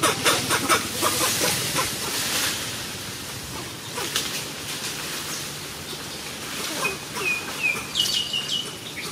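Dry leaf litter rustling and crackling in short bursts, with a few quick falling high chirps near the end followed by one briefly held high note.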